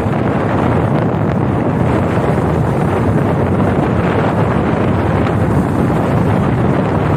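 Loud, steady wind noise on the microphone of a phone riding on a moving motorcycle, with no clear engine note standing out.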